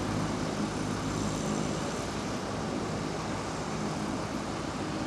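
Distant Boeing 737-200 on final approach, its Pratt & Whitney JT8D jet engines heard as a steady, even rush of noise with a low hum under it.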